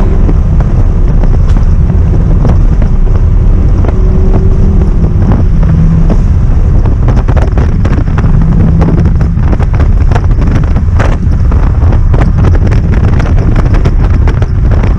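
Audi R8's naturally aspirated 5.2-litre V10 engine running under way, loud and deep, with its note holding and shifting in pitch. Heavy wind noise buffets the microphone throughout.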